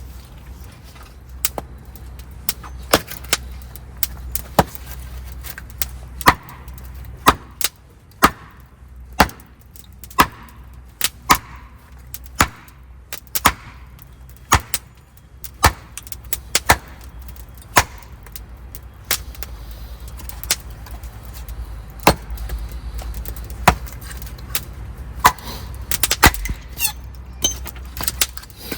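A long run of sharp knocks and clinks, hard objects striking each other roughly once a second at an uneven pace, some with a short ring, over a low steady rumble.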